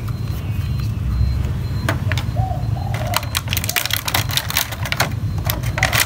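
Crinkling and rustling of clear plastic packaging being handled around a toy RC helicopter, starting about halfway in, over a steady low hum. A bird coos repeatedly in the background.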